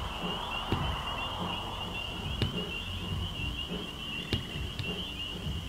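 Night-time outdoor ambience dominated by insects chirping in a steady, rapid high-pitched trill, with a few sharp clicks and soft low knocks scattered through.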